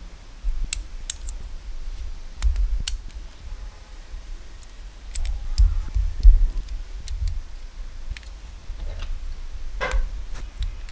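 Small plastic building bricks clicking and knocking as pieces of a brick-built tank model are handled and worked in the hands: irregular sharp clicks, a louder one near the end, over a low rumble of handling.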